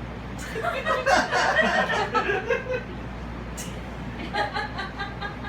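A person chuckling and laughing under their breath in short bursts: a spell lasting a couple of seconds starting about half a second in, and another about four seconds in.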